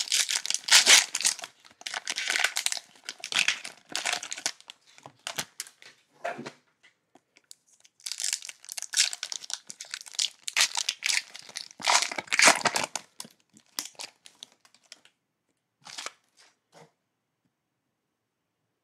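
Cellophane wrapper of a baseball card cello pack crinkling and tearing as it is opened by hand. The crackling comes in bursts with a short lull about seven seconds in, then dies away after about fifteen seconds with a few faint ticks.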